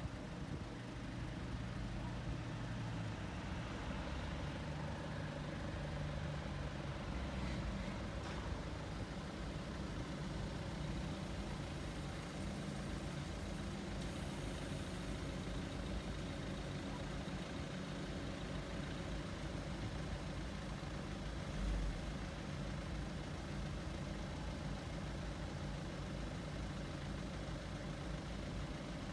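Car engines idling, a steady low hum, with a brief low thump about three quarters of the way through.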